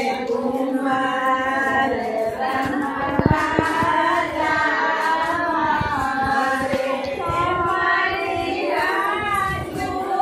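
Women's voices singing a folk devotional song together.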